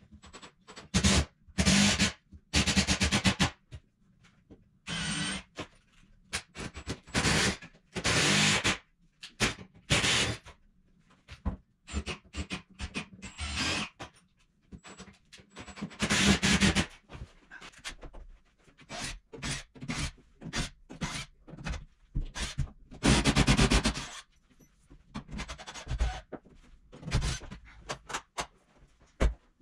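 Cordless power driver running in short bursts of about half a second to a second, about a dozen times, driving screws. Quieter clicks and tool handling come between the bursts.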